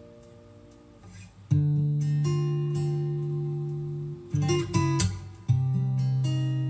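Acoustic guitar music played through a Marshall Stanmore 2 speaker: a quiet moment, then held guitar chords coming in about a second and a half in, with a brief change of chords a little past the middle.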